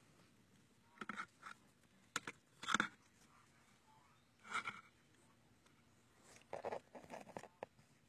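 Several short, faint rustles and scrapes, about five in all over a quiet background: handling noise from a handheld camera moving close around the engine bay.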